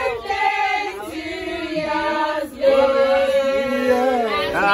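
A group of people singing together, holding long drawn-out notes.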